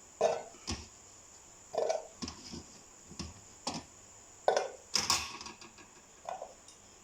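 Kitchen utensils and dishes clattering: about nine irregular knocks and clinks of a knife and dishware being handled, the loudest about five seconds in.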